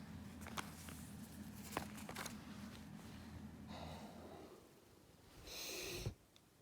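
Heavy breathing: two long, noisy breaths in the second half. Under them is a low steady hum with a few light clicks in the first half.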